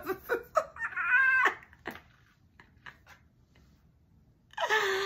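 A woman laughing: a few short breathy bursts, a high-pitched squealing laugh about a second in, a pause, then a lower laugh near the end.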